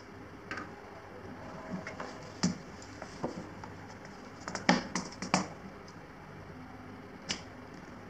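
Hands handling a tablet in its folio case, its stylus and a detachable white keyboard on a desk: scattered light clicks and taps, with a cluster of sharper taps near the middle.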